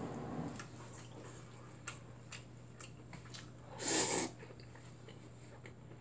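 A person slurping a mouthful of spicy cold bibim-myeon noodles off chopsticks, one loud slurp about four seconds in, with small mouth clicks of chewing around it.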